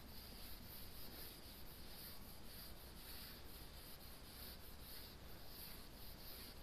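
Whiteboard duster wiping marker ink off a whiteboard: faint, repeated rubbing strokes.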